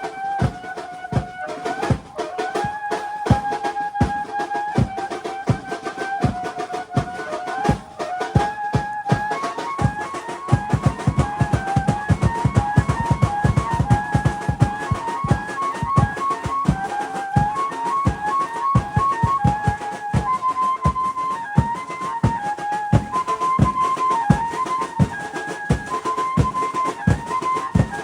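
Garba dance music: a fast, steady drum beat under a high melody that moves in short repeated phrases. About ten seconds in, the drumming thickens into a heavy run of strokes for a few seconds.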